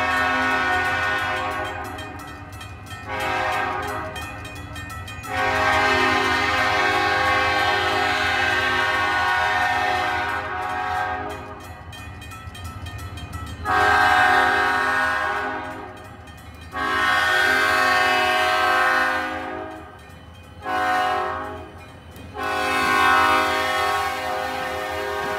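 Diesel locomotive air horn sounding a chord in repeated blasts. A short blast is followed by a long held one. Then comes a long, long, short, long sequence, the standard grade-crossing signal. The low rumble of the moving train runs underneath.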